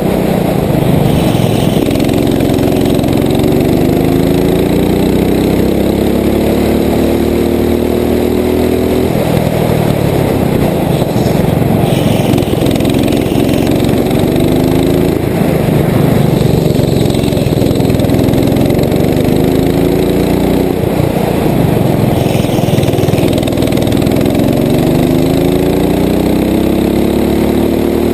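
Rental go-kart's small petrol engine heard from on board, its pitch rising as it accelerates along each straight and dropping back when the driver lifts off for a bend, about four times over.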